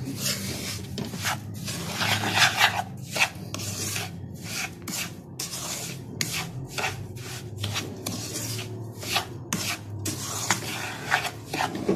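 A spoon stirring and scraping semolina around a nonstick pan as it roasts in ghee, in repeated uneven scraping strokes, two or three a second.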